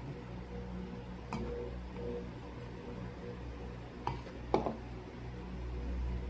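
Cat eating from a ceramic plate of rice, fish and dry kibble: a few sharp clicks and clinks, the loudest about four and a half seconds in, over a steady low hum.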